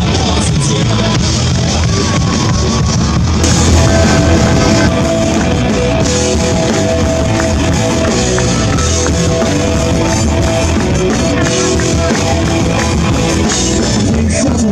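Live rock band playing an instrumental passage on electric guitar and drum kit, with no vocals. A sustained note rings through the middle of the passage.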